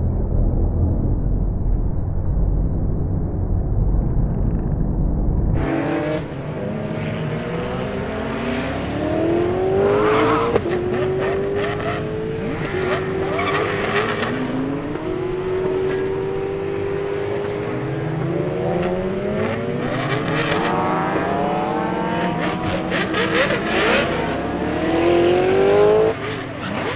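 A deep, muffled engine rumble for about the first six seconds. Then, after a sudden change, several race car engines rev and accelerate together, their notes climbing again and again through the gears as the pack pulls away.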